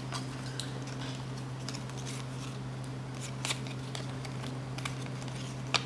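Trading cards being handled and flipped through by hand: faint rustles and light clicks of card edges, the sharpest about three and a half seconds in and near the end, over a steady low hum.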